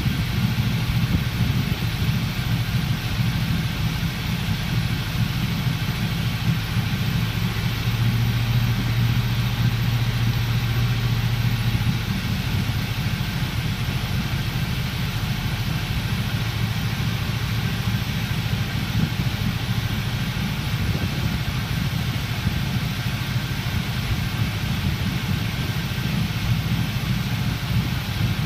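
Engine idling steadily during an induced misfire test, where a cylinder is deliberately cut to compare the running. Its low note changes about twelve seconds in.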